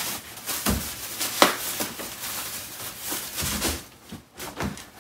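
Rustling and crinkling of reusable shopping bags and clothing as they are rummaged through and a pair of pants is pulled out, with a sharp click about a second and a half in.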